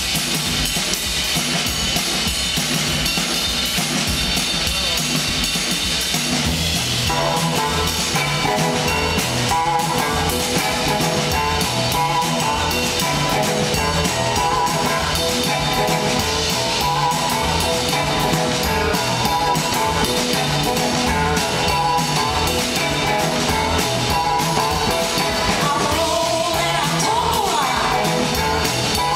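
Live blues-rock band playing, heard from the audience in a concert hall: a drum kit keeps a steady driving beat under electric guitars and a saxophone. About seven seconds in, more instruments join and the sound thickens.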